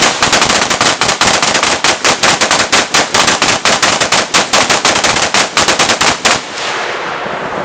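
Rapid gunfire, about seven shots a second, held for some six seconds, then stopping suddenly, with rain hiss left behind.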